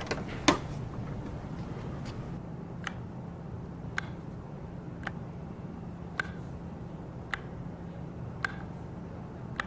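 Sharp ticks at an even, slow pace, about one a second, over a low steady hum, with a louder click about half a second in.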